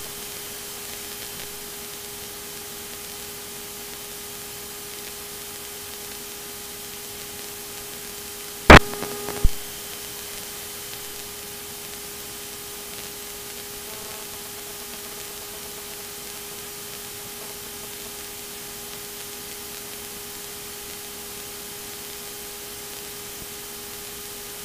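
Steady electrical hiss with a faint hum, and two sharp clicks less than a second apart about nine seconds in.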